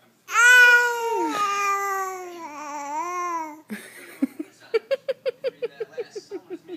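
A nine-week-old baby yells: one long, drawn-out cry that sags in pitch, then a quick run of short, breathy little yells, about six a second.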